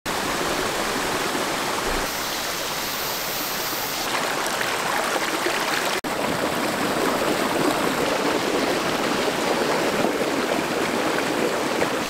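A rocky mountain stream flowing over boulders in small cascades: a steady rush of water, broken for an instant about halfway.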